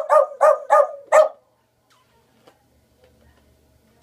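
Boglen Terrier, a small Beagle–Boston Terrier mix, barking: a quick run of about five high barks, ending about a second and a half in.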